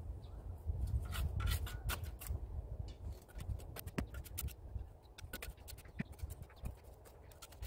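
A shovel scraping and crunching in loose, gritty soil, mixed with the scuffs of work shoes on cement blocks. The sound is a run of short, sharp scrapes and clicks that comes in two busy stretches, near the start and again around the middle, over a low rumble.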